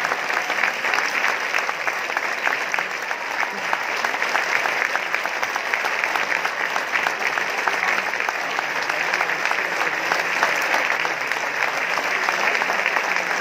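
A large theatre audience of about 2,500 applauding in a standing ovation: dense, continuous clapping with voices mixed in, steady throughout.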